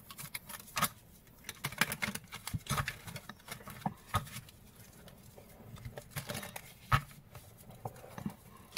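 A deck of oracle cards being shuffled by hand to cleanse it before a draw: irregular soft clicks and taps of cards slipping and knocking together, with a few sharper taps about a second in, about four seconds in and near seven seconds.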